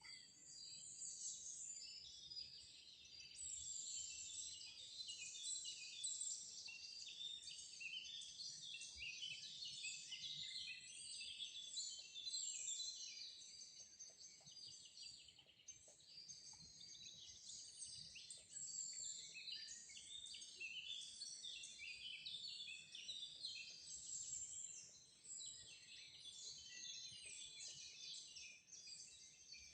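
A dense chorus of many birds chirping and singing at once, high-pitched and continuous, with overlapping short calls and trills.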